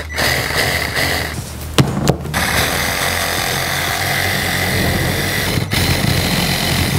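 Milwaukee cordless reciprocating saw running as its blade cuts through a block of dry ice. It stops briefly about two seconds in and again for a moment late on.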